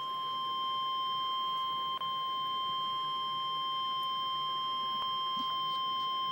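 NOAA Weather Radio warning alarm tone: a single steady high-pitched alert tone held for the whole stretch, with a brief dropout about two seconds in, cutting off sharply at the end. It signals that an emergency weather warning is about to be read.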